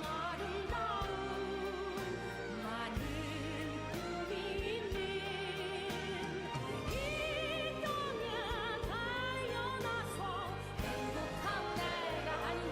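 Background music: a song with a solo singing voice, its melody wavering with vibrato, over a sustained accompaniment.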